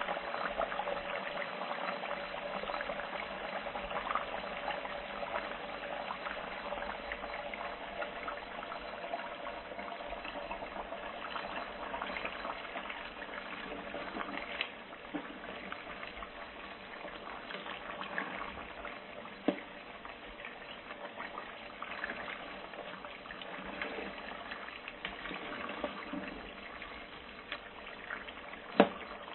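Food frying in hot oil: a steady sizzle full of small crackles, with two sharper pops, one about two-thirds of the way in and one near the end.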